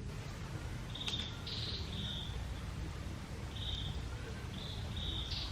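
A bird chirping: a string of short, high chirps in small clusters, over a steady low background rumble.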